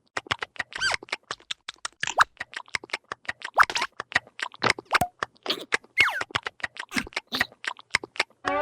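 Cartoon sound effects: a rapid patter of short clicks, several a second, mixed with squeaky, gliding vocal squeals from the cartoon larva characters. A rising pitched whoop begins right at the end.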